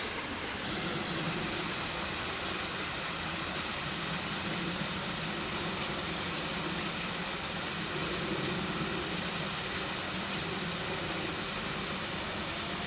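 Steady low hum under an even hiss of background noise, with no distinct events.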